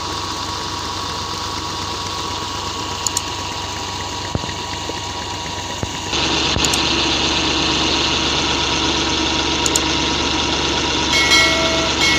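65 hp Ghazi tractor's diesel engine running steadily, driving a belt-driven water pump from its pulley. The running gets louder and hissier about six seconds in, and a short electronic chime sounds near the end.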